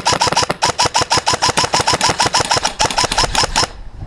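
Airsoft rifle firing one long full-auto burst, an even rattle of about nine shots a second that stops abruptly near the end.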